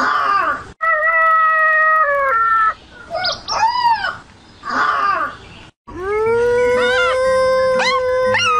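Dogs howling in a run of short clips, with pitched calls that rise and fall. From about six seconds in there is one long, steady howl.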